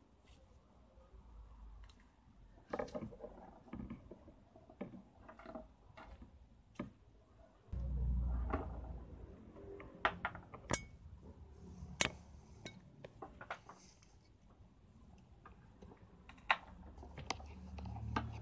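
Scattered light clicks and taps, with a low rumble about eight seconds in and again near the end: handling noise as the wire dowsing rods are set down and moved by hand.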